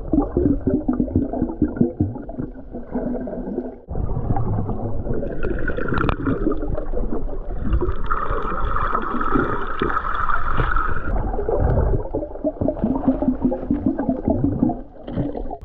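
Water sounds heard through an underwater camera: bubbling and gurgling, with many small clicks and knocks against the housing. There is a sharp break about four seconds in, and a steadier higher hum through the middle few seconds.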